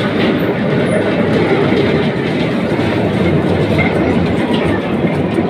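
Mine train of an orange locomotive and open passenger carriages rolling past close by on rails, a steady loud rumble and rattle of wheels on track.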